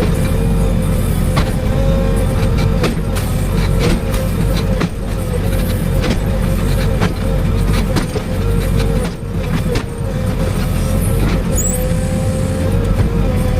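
Excavator's diesel engine running steadily under load during demolition work, with a held whine and scattered sharp knocks and clatters throughout.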